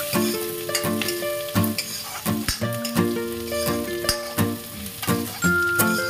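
Chopped onions sizzling as they fry in ghee in an iron kadhai, stirred with a metal ladle. Background music with held notes and a steady beat plays over it.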